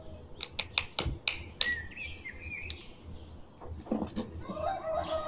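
Light plastic clicks and taps of a small action figure and its plastic stand being handled and set down, a cluster of them in the first couple of seconds. Birds chirp in the background.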